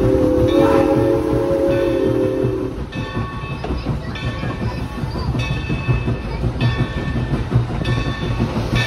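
Steam locomotive No. 3025's chime whistle sounds a long blast that cuts off about two and a half seconds in, over the low running rumble of the moving engine. After that the rumble goes on, with a high squeak coming and going about once a second.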